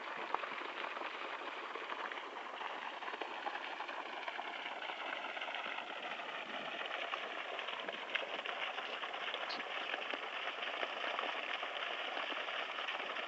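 Water pouring and splashing steadily, the outflow of a solar-powered irrigation pump, a continuous rush flecked with small crackles and splashes.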